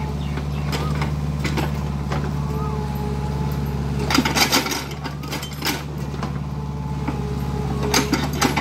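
Kubota mini excavator's diesel engine running steadily, with clusters of sharp cracks and knocks about four seconds in and again near the end.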